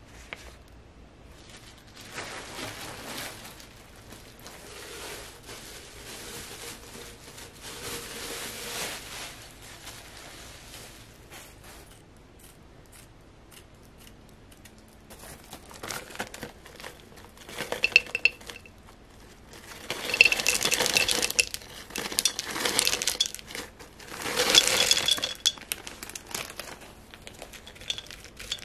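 Small potting stones poured and stirred by hand into a ceramic plant pot, clinking against each other and the pot walls in several loud bursts in the second half. Before that, a softer stretch of rustling handling.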